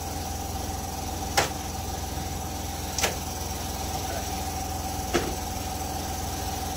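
Three sharp metal knocks from parts of a partly dismantled car's front end being handled, one about every one and a half to two seconds, over a steady low hum.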